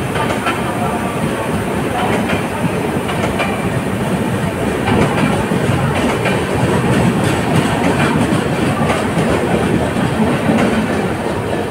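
Passenger express train coaches running past at speed: a steady, loud rumble of wheels on rail, with irregular clacks as the wheels cross rail joints.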